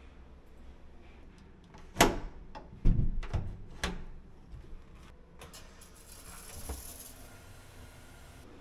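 Metal latch and handle of a wooden toilet cubicle door being worked: a cluster of sharp clicks and knocks over about two seconds, followed by a soft hiss.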